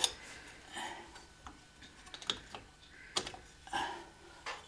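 Light metallic clicks and taps, irregularly spaced about half a second to a second apart, as a steel special tool is fitted and worked against a VéloSolex engine's parts.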